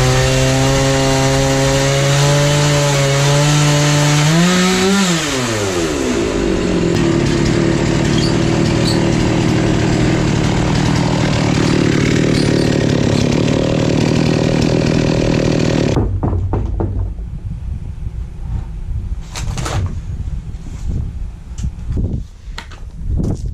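Stihl MS 460 two-stroke chainsaw ripping red oak in a chainsaw mill, running at a steady high speed. About five seconds in the pitch briefly rises and then drops sharply. The saw runs on with a rougher, noisier sound until it cuts off suddenly about two-thirds of the way through, followed by a few scattered knocks.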